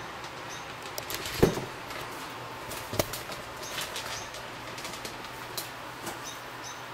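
Handling noise: a scatter of light clicks and knocks, with two sharper knocks, one about a second and a half in and one about three seconds in.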